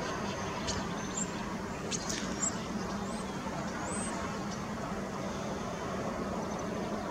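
Steady low background rumble of distant road traffic, with a few faint, brief high chirps and clicks.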